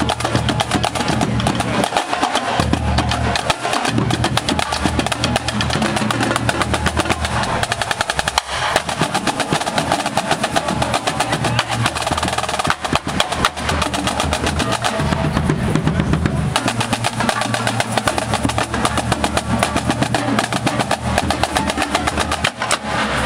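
Marching drumline playing a fast cadence on snare drums, tenor drums and Dynasty bass drums. Rapid snare strokes run over low bass drum beats throughout.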